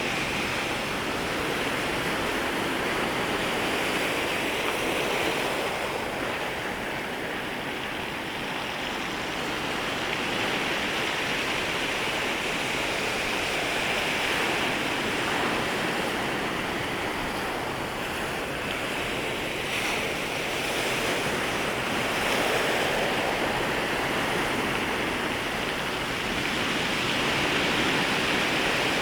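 Small waves lapping and washing at the water's edge in a steady, complex rush of surf that swells and eases every few seconds.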